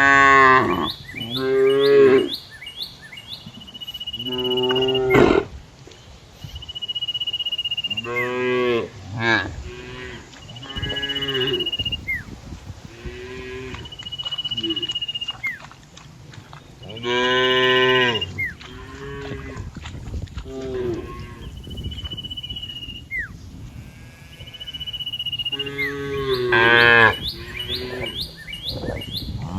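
Cattle mooing: a string of loud, drawn-out moos, several calls in turn, the loudest near the start, about halfway through and near the end. Short high steady peeping tones recur in the pauses between the moos.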